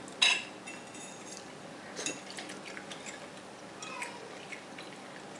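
Metal fork clinking and scraping against a plate while eating, with a sharper clink just after the start and small scattered clicks after it.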